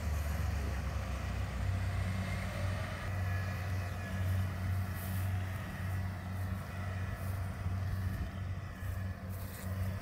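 Kubota combine harvester's diesel engine running steadily, a low hum as the machine drives off across the rice field, growing slightly fainter near the end.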